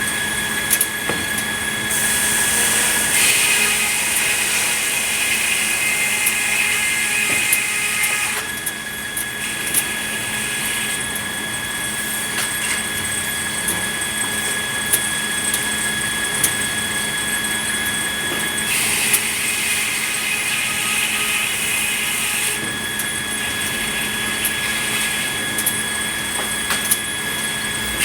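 Sawmill saw running with a steady whine, growing louder and harsher twice as it cuts through red pine.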